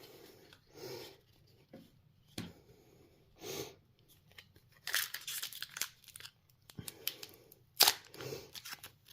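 Foil wrapper of a Pokémon trading-card booster pack being torn open and crinkled by hand, in short rustling bursts with a longer tearing stretch about five seconds in.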